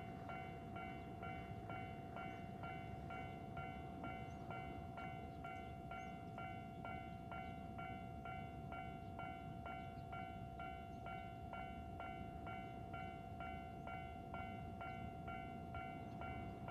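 Railway level-crossing warning bell ringing steadily, about two strikes a second over a held tone, with the low rumble of the DD51 diesel-hauled freight train approaching in the distance underneath.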